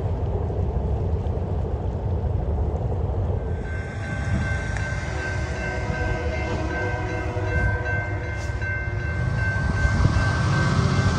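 Wind rumble on the microphone, then from about four seconds in a diesel locomotive's horn sounds a long, steady chord from an approaching train and holds it to the end.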